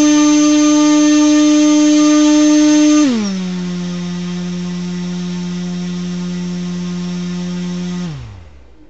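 2206 2150 kV brushless motor spinning a 6x4.5 propeller on a thrust stand: a steady whine that drops to a lower, quieter pitch about three seconds in as the throttle steps down. About eight seconds in it winds down and stops as power is cut.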